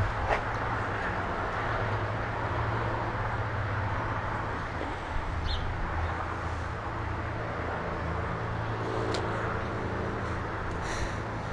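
A steady low motor hum over even background noise, with a few faint clicks.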